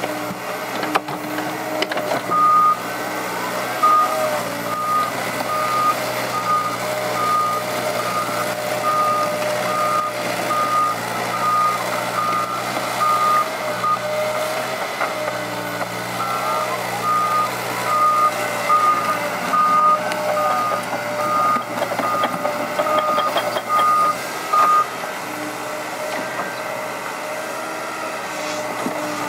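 Liebherr crawler excavator's diesel engine running steadily while it digs, with a backup alarm beeping about twice a second over it. The beeping pauses briefly near the middle and stops a few seconds before the end.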